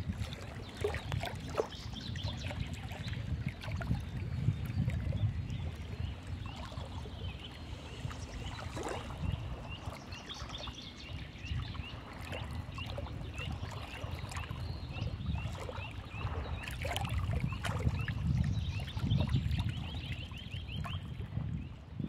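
River water lapping against a mud bank under an uneven low rumble, with small splashy clicks. In the second half a small bird sings runs of quick, high repeated chirps.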